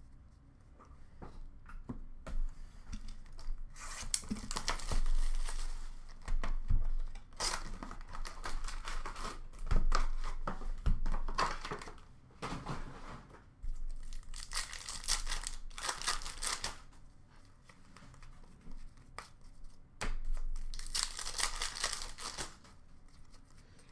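Retail box and foil packs of Upper Deck Extended hockey cards being torn open by hand: several bursts of tearing and wrapper crinkling, some lasting a few seconds, with quieter handling of cards and packaging between.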